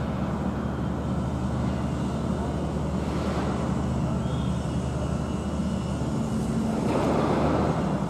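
Steady drone of construction-site machinery, with a low engine hum under an even noisy rumble, growing louder for a moment about seven seconds in.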